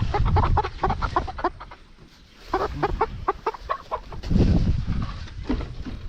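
Chickens clucking and squawking in two quick runs of short calls, several a second, as the birds are handled and carried. A low rumbling noise comes in about four seconds in.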